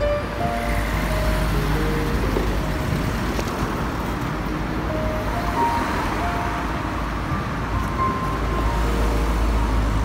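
Street traffic noise: a steady hiss of passing cars over a continuous low rumble, with a few faint melody notes on top.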